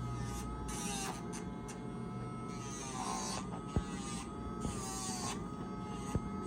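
Small electric rotary nail grinder running with a steady whine. Its pitch sags briefly three times, with a gritty high hiss each time it is pressed against a dog's nail. Two short sharp clicks near the middle and near the end.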